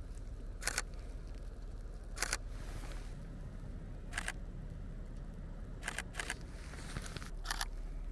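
Camera shutter firing, about six separate shots spread a second or two apart, some heard as quick double clicks.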